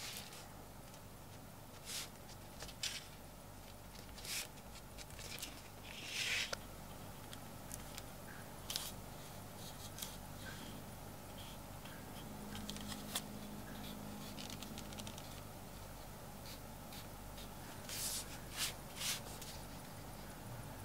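Hands and tools working small pieces of English bridle leather on a cutting mat: scattered brief scratching and rubbing sounds with a few light clicks, the longest scratch about six seconds in and a cluster of them near the end.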